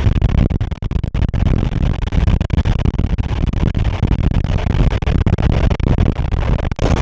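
Special train hauled by an SU45 diesel locomotive running, heard from aboard: a loud, rough, mostly low rumble that cuts out briefly many times.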